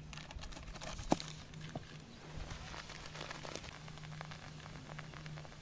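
Cola fizzing and foaming up inside a large plastic can as baking soda is tipped in: a crackling hiss of many small popping bubbles. Paper sachets rustle as the powder is poured, and there is a sharp click about a second in.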